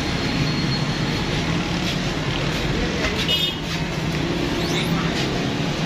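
Steady background noise with a low hum, and a brief high chirp a little past the middle.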